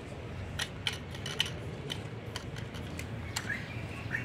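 Light clicks and taps of small plastic and steel toy kitchenware being handled, about ten separate sharp clicks spread irregularly, as dough is pressed and rolled with a toy rolling pin on a plastic plate. Birds chirp faintly near the end.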